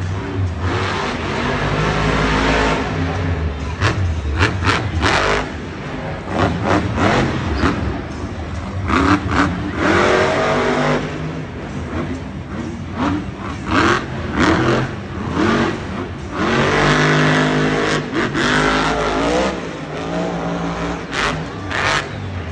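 Monster truck's supercharged methanol-burning V8 revving hard and easing off again and again as the truck drives and turns on the dirt, the pitch rising and falling in repeated surges.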